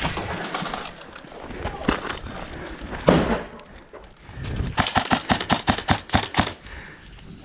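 Airsoft gun firing: one loud sharp crack about three seconds in, then a rapid string of about a dozen shots at roughly seven a second, lasting nearly two seconds.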